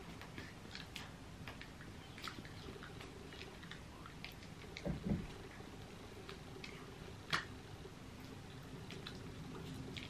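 Faint mouth clicks and light hand taps from someone signing, over a low steady hum; a couple of louder taps come around the middle, the sharpest a little past seven seconds.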